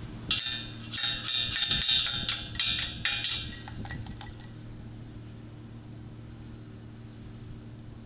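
Slag on a fresh stick weld bead crackling and tinkling as the hot weld cools, a quick flurry of small clinks that thins out and stops about halfway through, over a steady low hum.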